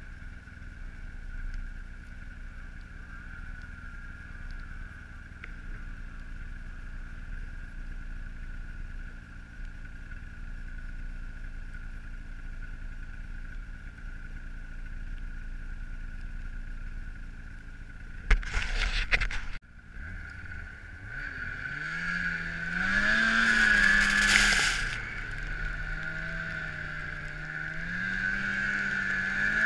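Polaris snowmobile engine running steadily with a constant high whine. Past the halfway point comes a brief loud rush, then the engine revs harder, its pitch rising and falling with the throttle over a loud rushing noise.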